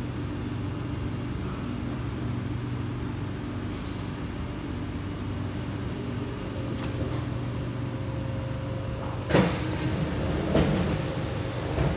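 Steady low hum inside a stationary C751B metro train car, with its onboard equipment running. About nine seconds in there is a sharp knock, followed by two softer bumps and rustles.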